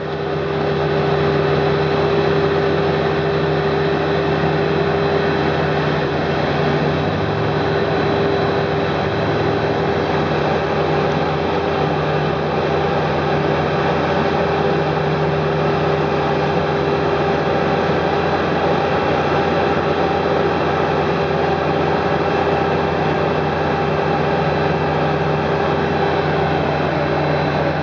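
Engine of heavy road-construction machinery running steadily, with a constant low hum and no change in speed.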